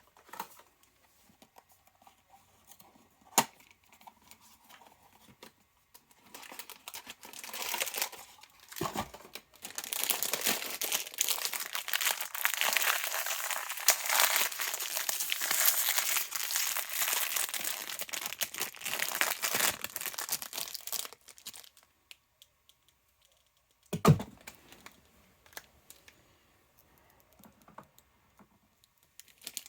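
Packaging being crinkled and torn open by hand, with dense crinkling for about fourteen seconds in the middle. A sharp click comes early on, and a single thump follows the crinkling.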